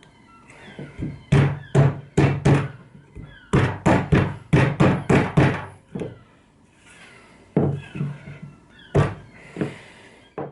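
Sharp knocks on wood in quick runs: about four, then a fast run of about eight, then a few spaced knocks near the end. These are the box-jointed lid pieces being knocked together for a test fit.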